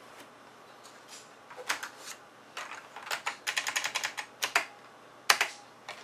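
Computer keyboard keys being pressed to change and save BIOS settings. A few single clicks, then a quick run of taps, with the loudest pair of clicks about five seconds in.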